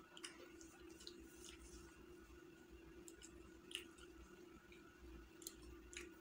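Faint chewing and wet mouth clicks from eating chicken biryani by hand, scattered every second or so, over a steady low hum.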